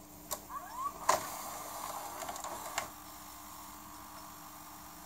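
VHS mechanism of a Daewoo VCR/DVD combo loading a cassette and threading the tape around the head drum: several clicks and two short rising motor whines, then gear whirring and ticking. A final click comes nearly three seconds in, after which the deck runs faintly and steadily as playback begins.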